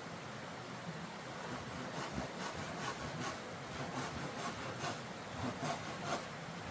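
Irregular scraping or rubbing strokes, a few a second, starting about two seconds in over a steady background hiss.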